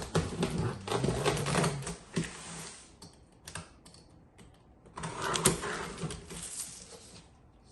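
Cardboard shipping box being opened and handled: cardboard rustling, scraping and knocking in a busy spell at the start and another about five seconds in, with scattered clicks between.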